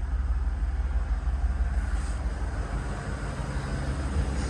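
Steady low idle hum of a 2013 Chevrolet Avalanche's V8 engine.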